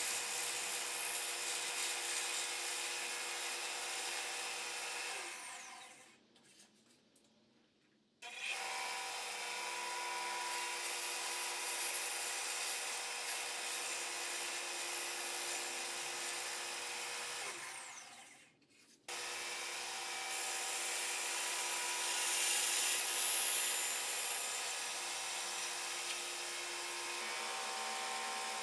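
Band saw running and cutting into a wooden board: a steady motor hum under the hiss and rasp of the blade in the wood. The sound fades away twice, about six seconds in and again near eighteen seconds, and each time comes back in abruptly.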